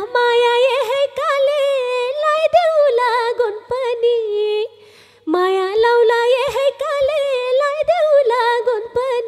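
A woman singing a line of a Nepali dohori folk song into a microphone: a long, ornamented melody that wavers and bends in pitch, broken by a short breath pause about five seconds in.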